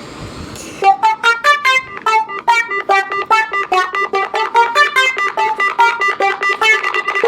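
A phone ringtone from the Micromax Canvas S4 begins about a second in: a fast, steady run of plucked, guitar-like notes forming a repeating melody. Before it there is a short stretch of faint hiss.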